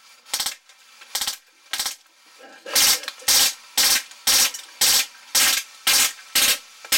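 Drozd Blackbird BB gun, converted to full-auto with a Sergey board and running on a high-pressure air tank, firing about a dozen short bursts of BBs into the target. Three softer bursts come first, spaced out, then louder bursts about two a second.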